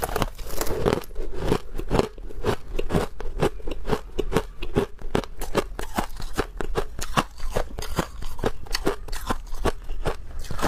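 A bite into a block of hard frozen ice, then steady crunching as the ice is chewed, about four sharp crunches a second.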